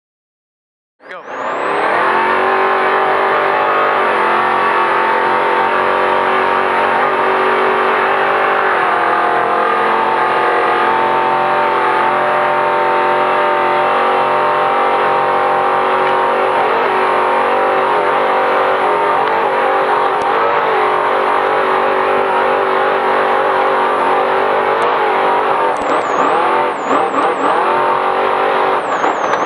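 Trophy truck's race engine running hard at high revs, heard from on board: a loud, steady drone that starts about a second in, with its pitch stepping between levels a few times.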